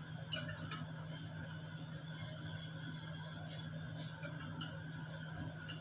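A metal spoon clinking lightly against a glass a handful of times at irregular moments while flour is stirred into water, over a steady low hum.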